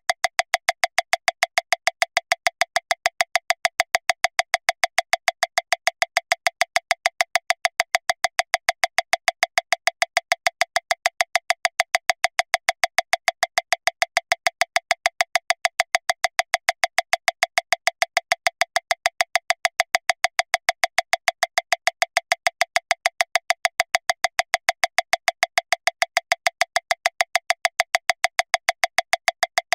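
Metronome clicking at 405 beats per minute, one click about every 0.15 seconds, a fast, even tick of about seven clicks a second.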